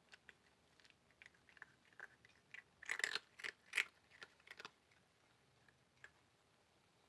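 A cat chewing and biting at pieces of dry flatbread: a run of short crunchy bites, densest and loudest about three to four seconds in, then a single one near the end.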